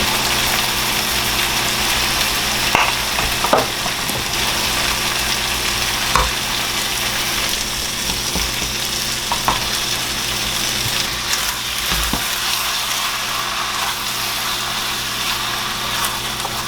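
Beef and noodles sizzling as they are stir-fried in a hot pan, with a few sharp clicks of the stirring utensil against the pan.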